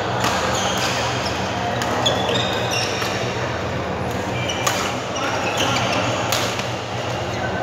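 Badminton doubles rally in a large hall: a few sharp racket hits on the shuttlecock, about two seconds apart, with shoes squeaking on the court floor between them. A steady low hum runs underneath.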